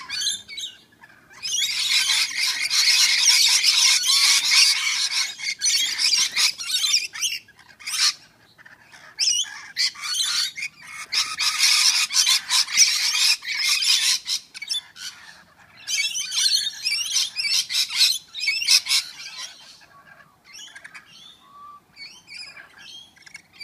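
Rainbow lorikeets screeching and squabbling in long harsh bouts, broken by short pauses. The calls thin out to fainter separate chirps near the end.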